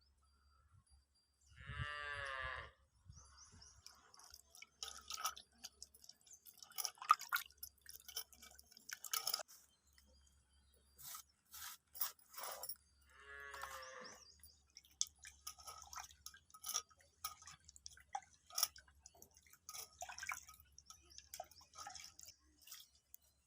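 An animal call, about a second long, sounding twice, with scattered sharp clicks and knocks around it.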